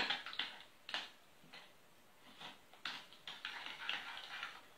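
A utensil stirring a wet batter of eggs, sugar, milk and lard in a glass mixing bowl, with irregular clinks and taps against the glass and soft scraping in between.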